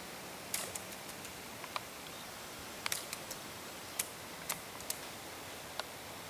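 A dozen or so sharp clicks at irregular intervals over a steady faint hiss.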